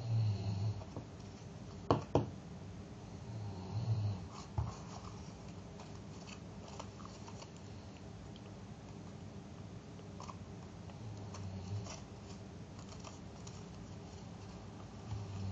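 Folded paper being handled and fitted together by hand: soft rustles and small scratchy taps, with two sharp clicks in the first five seconds. A few short low hums, the loudest sounds, come at the start, around four seconds, after about eleven seconds and at the end.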